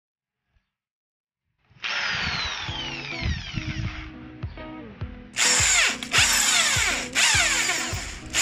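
Handheld cordless power tool running in bursts, starting about two seconds in, with short breaks and louder in the second half.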